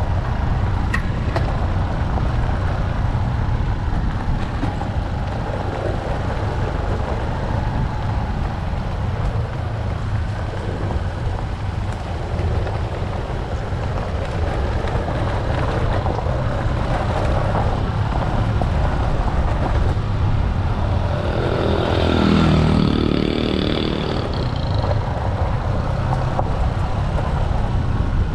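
Small motorcycle engine running steadily while riding a rough track, with wind on the microphone. About three quarters of the way through there is a brief louder patch with a higher-pitched part.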